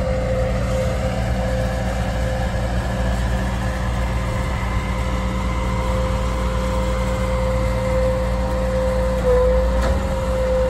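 Freight train carrying track-maintenance machines on flatcars, giving a steady low rumble with a high whine held on one pitch, which wavers briefly near the end.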